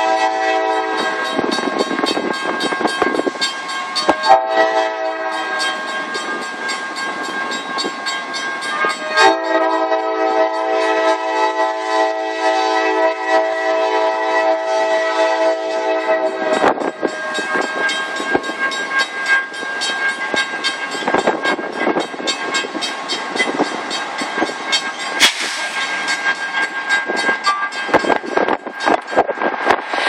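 A CSX GE C40-8 locomotive's wheezing Nathan K5LA five-chime air horn. One blast ends just after the start, a short toot comes about four seconds in, and a long blast of about seven seconds follows. Then the train passes with steady wheel-and-rail noise and clicking over the rail joints.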